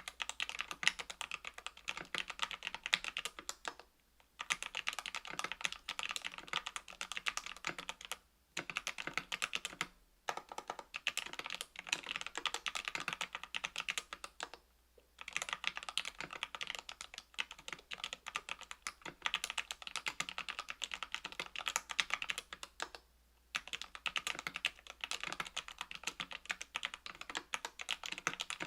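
Continuous typing on a KBDfans Tofu 65% aluminium mechanical keyboard with lubed Equalz C³ Macho 62g linear switches (Krytox 205g0), aluminium plate and GMK keycaps: a dense run of keystroke clacks, broken by several brief pauses.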